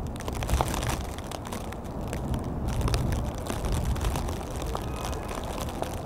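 Gusty wind buffeting the microphone: a low rumble that swells and fades, with scattered sharp ticks and crackles over it.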